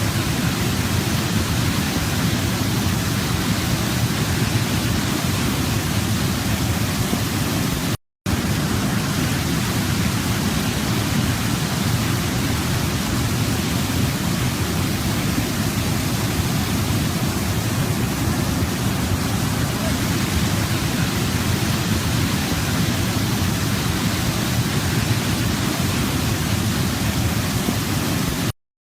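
Waterfall rushing steadily. It drops out for a moment about eight seconds in and cuts off suddenly just before the end.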